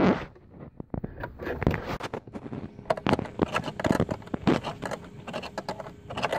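Ratchet wrench clicking in short, uneven runs as it tightens the nut that holds the tail light in place, with metal scraping and handling noise in between.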